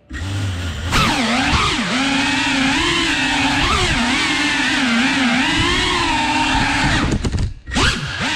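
Small FPV drone's motors and propellers whirring, the pitch rising and falling as the throttle changes. The sound dips briefly about seven and a half seconds in.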